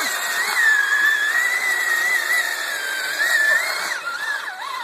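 Electric motor and drivetrain of a Traxxas Summit 1:10 RC truck whining as it churns through deep mud and water, the pitch wavering with the throttle and swinging lower and back up near the end, over a hiss of churning water.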